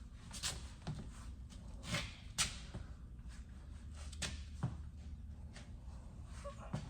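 Scattered knocks and clunks of heavy tractor tires and wheels being shifted and handled during a tire change, the loudest about two and a half seconds in, over a low steady hum.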